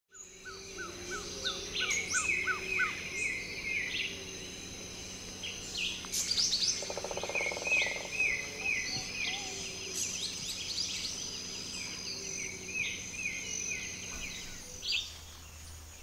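A chorus of several tropical birds calling and singing at once, with overlapping whistles and chirps. Early on, one bird repeats a short falling note about three times a second. A brief rapid rattle comes about halfway through.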